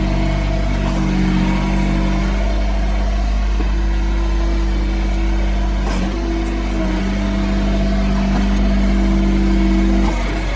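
Yanmar B22 mini excavator's diesel engine running steadily under digging work, its note shifting slightly several times as the hydraulic load changes. The audio is played at double speed.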